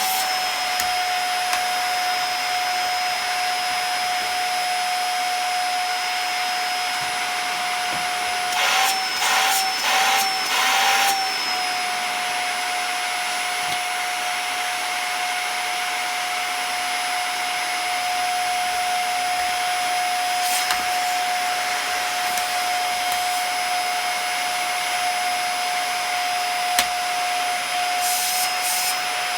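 Dyson DC50 upright vacuum cleaner running with a steady high whine, freshly cleaned out of plaster dust and working properly. About nine seconds in, the whine wavers and gets louder for a couple of seconds, then settles back.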